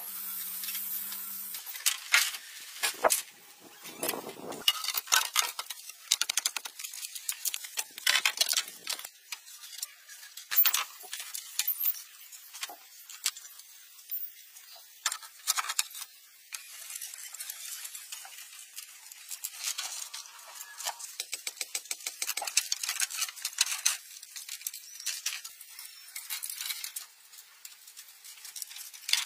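Bamboo poles being handled and fastened: irregular clattering, knocking and sharp clicks of bamboo striking bamboo, with a stretch of rapid ticking in the second half.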